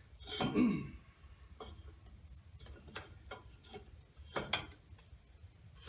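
A short strained vocal sound, then scattered metallic ticks and a sharper double clank about four and a half seconds in. These are a pipe wrench and cheater pipe straining against a rusted-on muffler on a Gravely walk-behind tractor's exhaust, as the seized muffler is forced to turn.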